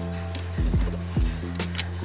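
Background music: a mellow electronic beat with deep kick-drum hits under held chords.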